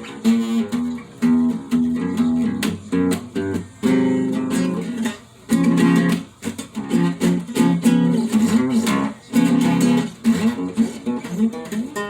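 Acoustic guitar being strummed and picked in a steady chord pattern, with no singing.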